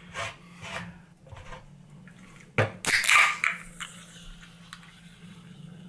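A can of carbonated soft drink being opened: a sharp click of the pull tab about two and a half seconds in, followed at once by a short fizzing hiss.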